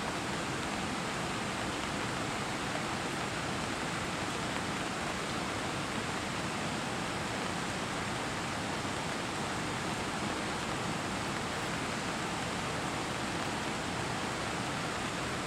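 Heavy rain falling, a steady, even hiss of water.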